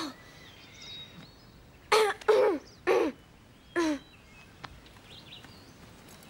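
A person's voice making short wordless sounds: one right at the start, then four short bursts, each falling in pitch, between about two and four seconds in.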